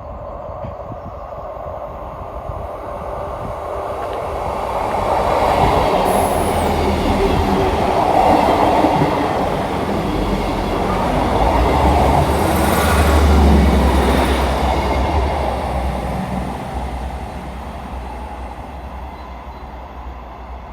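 Diesel multiple-unit train going past on the line through the station: its rumble builds, the engine drone and wheel noise are loudest about two-thirds of the way through, with brief high wheel squeals, then the sound fades away.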